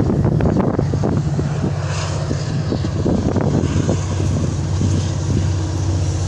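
A steady, low engine drone made of several even humming tones, with rustling and crackling over it in the first second and a few scattered clicks after.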